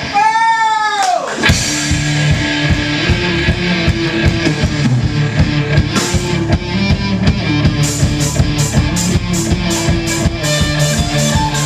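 Live rock band playing with distorted electric guitars, bass guitar and drum kit. It opens with a sustained guitar note that arcs up and then dives steeply in pitch before the full band comes in. From about 8 s in, cymbal strokes land roughly four a second over the steady riff.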